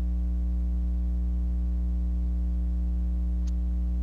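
Steady low electrical hum with a stack of fainter higher overtones, unchanging throughout: mains hum in the recording.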